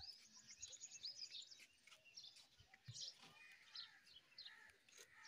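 Faint twittering of small birds: a quick run of high chirps about half a second in, then scattered chirps through the rest.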